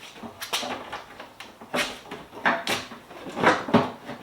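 Irregular sharp knocks and clunks of a car's front bumper cover being handled and pushed into place against the front end, the loudest a few strikes near the end.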